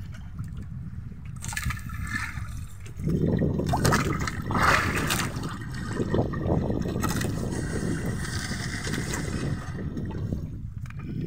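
Wet fishing net pulled in by hand over the side of a boat, with sea water splashing and trickling off the mesh and the net scraping along the hull. It grows louder about three seconds in, over a low steady rumble.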